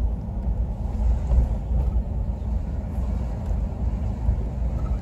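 Steady low rumble of a car's engine and tyres, heard inside the cabin while driving.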